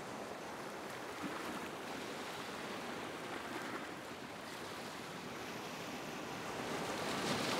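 Water rushing and splashing steadily past a moving boat's hull, growing a little louder near the end.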